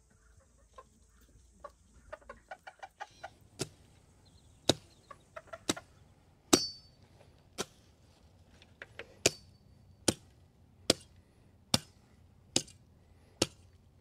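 A chicken clucking softly in quick short notes for the first few seconds. Then a run of about a dozen sharp knocks, roughly one a second, some with a brief metallic ring.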